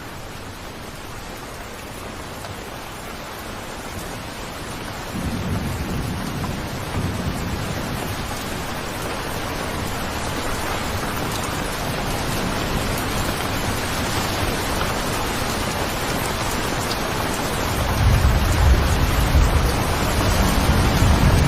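Steady rainfall hissing, slowly growing louder, with low rumbles of thunder setting in about five seconds in and a louder rumble near the end.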